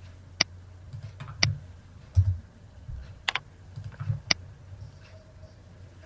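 Computer mouse and keyboard clicks as data is entered: four sharp clicks spread over a few seconds, with soft low thumps between them.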